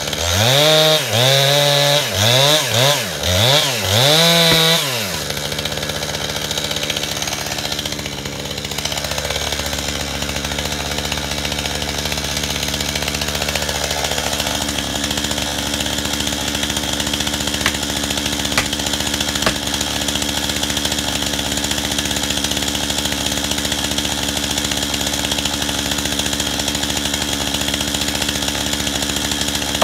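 Chainsaw revved about four times in quick succession, then dropping back to a steady idle that runs on evenly.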